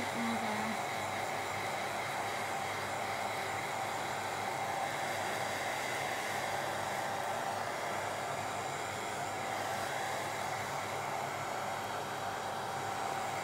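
Everyday handheld hair dryer running steadily on low heat: a constant rush of blown air with a faint steady whine.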